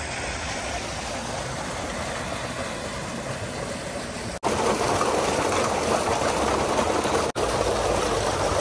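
Water gushing from a tubewell's outlet pipe into a concrete tank, a steady rushing splash that gets louder a little past four seconds in.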